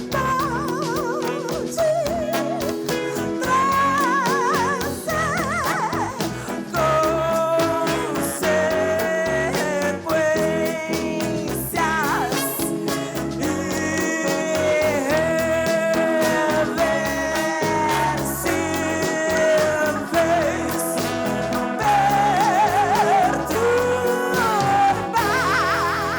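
A live band plays while a singer holds long notes with a wide vibrato, mostly without clear words.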